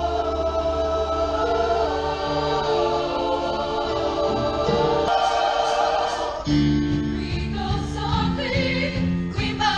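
Show choir singing held chords in harmony over instrumental backing, with the harmony shifting about five and six and a half seconds in.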